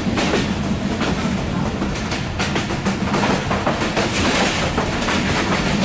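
Passenger train running at speed, heard from inside the coach: a steady rumble with irregular clattering of the wheels over the track.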